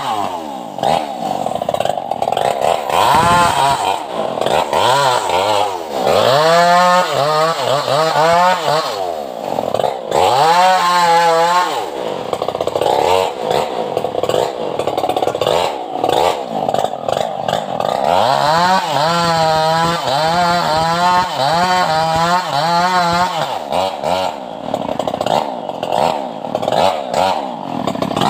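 Stihl MS381 two-stroke chainsaw cutting a felled tree trunk, its engine revving up and dropping back over and over. In two longer stretches the engine pitch wavers quickly up and down.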